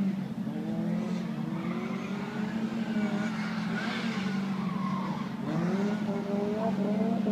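Classic rally car's engine revving up and down as it is driven through a cone course, its pitch rising and falling with the throttle and gear changes, with a brief tyre squeal about halfway through. A steady low hum runs underneath.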